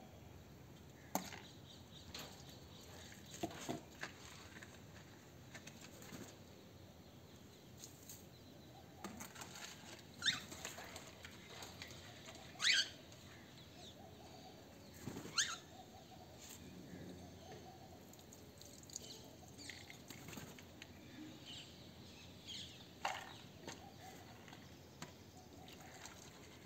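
Faint, scattered knocks and clatter from feed and water dishes being set down in a bird cage, with birds fluttering their wings now and then.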